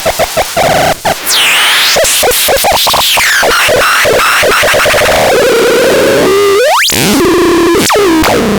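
Synthesized electronic sound effects: rapid stuttering pulses in the first second, then a loud, dense wash with sweeping pitch glides, a fast rising sweep about two-thirds of the way through and a falling sweep near the end.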